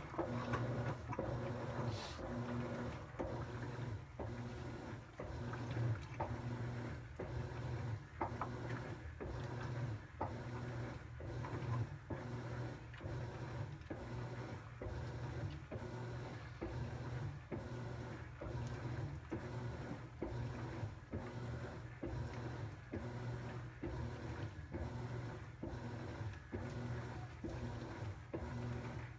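Top-load impeller washing machine agitating during its wash cycle: a steady low motor hum with a regular swish-and-stroke pulse about one and a half times a second.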